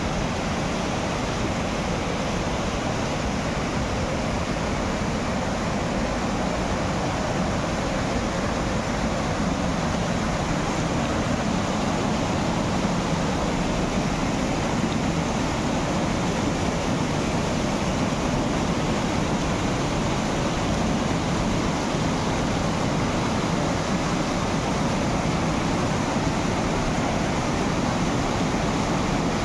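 Steady rush of falling or fast-flowing water, an even noise that holds unchanged throughout.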